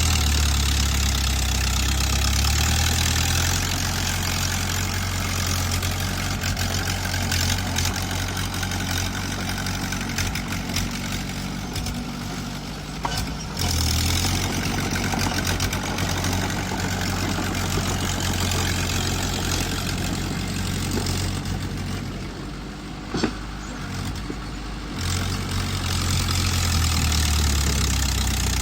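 Small bulldozer's diesel engine running steadily, easing off and picking up again several times as the load changes. A few short knocks, the sharpest about three-quarters of the way in.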